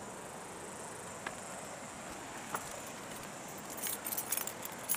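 Small metal pieces jingling and clinking in quick little rattles, starting about four seconds in, over a faint steady hiss.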